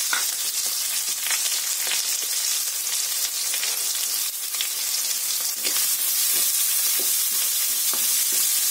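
Freshly added sliced onions frying in hot oil in a metal kadai: a steady sizzle with scattered crackles. In the last few seconds a wooden spatula stirs them, scraping against the pan.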